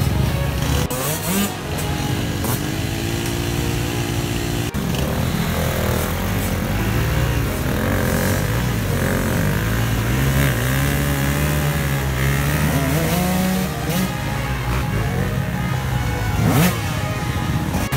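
Off-road motorcycle engines revving up and down, several at once, their pitch rising and falling as the bikes ride the course.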